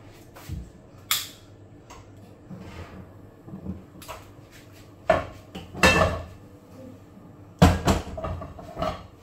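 Kitchen clatter: a knife and other utensils knocking and clinking against dishes as food is prepared, a few separate sharp knocks with the loudest about three quarters of the way in.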